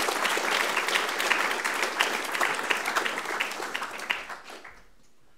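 Audience applauding, the clapping thinning out and dying away about four to five seconds in.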